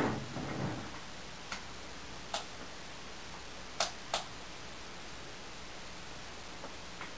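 A handful of short, sharp clicks or taps, about five spread over several seconds, over a low steady background hum.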